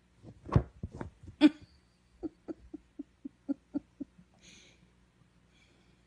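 A pet animal's voice: a couple of louder cries in the first second and a half, then a run of about eight short, evenly spaced calls, roughly four a second, that stop about four seconds in.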